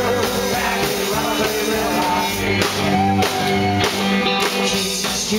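Live rock and roll band playing, with a steady drum beat under a pitched melodic line.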